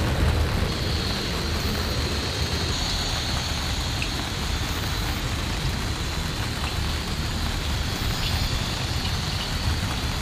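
Steady rain falling: a constant hiss with a low rumble underneath.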